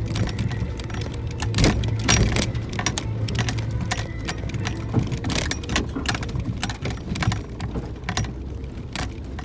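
Suzuki Jimny JB64's 660 cc turbo three-cylinder engine running low and steady as the car is driven down a rough forest track, with many sharp jangling rattles and clicks as it jolts over the surface.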